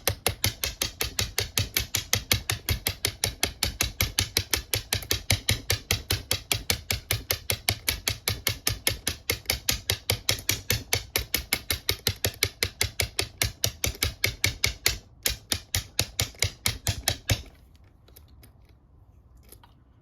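A bump key in a Master Lock Pro Series 7050 padlock being rapped over and over, about four sharp taps a second, with a short break near the end before the tapping stops. The lock's security pins keep it from opening.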